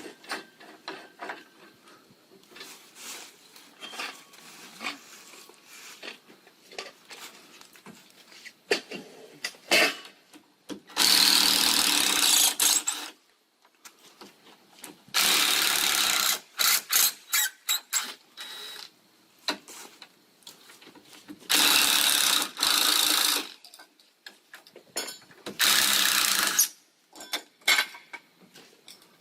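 Power drill-driver driving long wood screws into a 4x4 deck support post, in four runs of about two seconds each. Small clicks and knocks of handling come between the runs.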